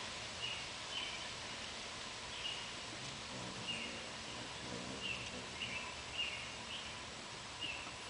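Hummingbirds' short, sharp chip calls, about nine of them at irregular intervals, over a steady outdoor hiss.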